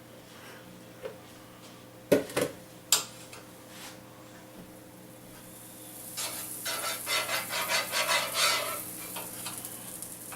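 A few sharp knocks of a utensil on cookware about two seconds in. From about six seconds, frying-pan sizzling with butter in a hot pan, overlaid with quick clattering stirring strokes of a utensil.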